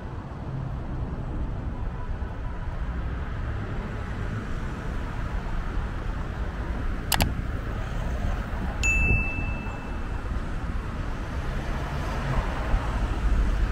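Steady city street traffic hum. A sharp click comes about seven seconds in, and a single high, bell-like ding rings for about a second just after.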